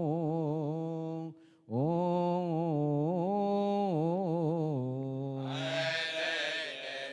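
A man chanting a long, ornamented melismatic phrase of Coptic liturgical chant into a microphone, with held notes and a short breath pause about a second and a half in. A soft hiss of background noise comes up near the end.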